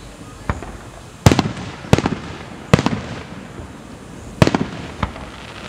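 Aerial firework shells bursting overhead: about six sharp bangs at irregular intervals, the loudest about a second in, each trailing off in a short echo.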